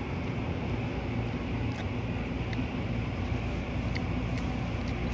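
Steady low mechanical hum, with a few faint small clicks.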